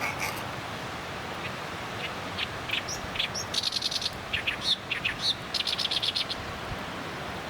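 A small songbird calling: a string of short high chirps, with a fast rattling trill about halfway through and another near the end, over a steady background hiss.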